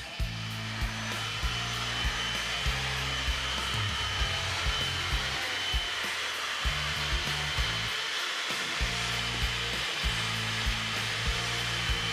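A small electric motor whirring steadily, with a thin high whine, over background music with a regular beat of about one and a half thumps a second.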